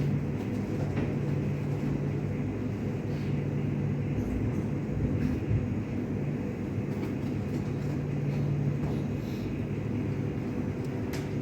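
A machine running steadily, giving a low hum with a few faint clicks over it.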